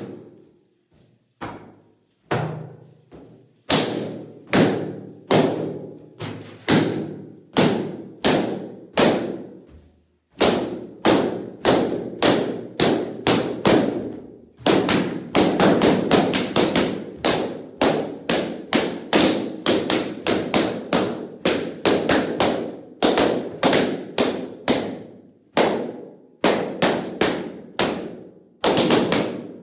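Latex party balloons bursting one after another as they are popped by hand: dozens of sharp pops, each ringing briefly in the room, about one or two a second at first, coming rapid-fire through the middle, then spacing out again near the end.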